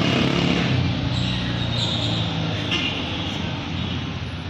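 Street traffic: a motor vehicle's engine running close by over steady road noise, fading out about halfway through.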